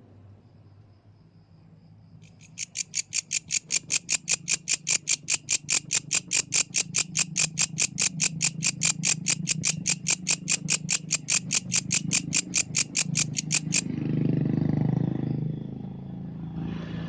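Yellow grasshopper stridulating: a fast, even train of high, shrill pulses, about six a second, that starts a couple of seconds in and cuts off suddenly near the end. A low rumbling noise follows.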